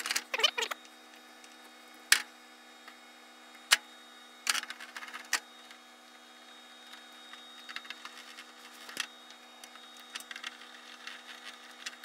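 Scattered clicks and light taps of wire and plastic as control wiring is fitted into the screw terminals of DIN-rail breakers and contactors, with a few sharper clicks standing out among many smaller ticks.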